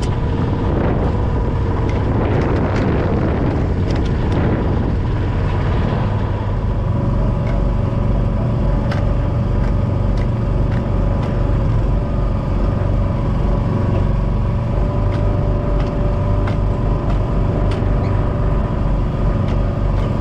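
Fishing boat's engine and hydraulic pot hauler running steadily with a low hum and a steady whine as a string of lobster pots is hauled in, with small clicks and knocks through the second half.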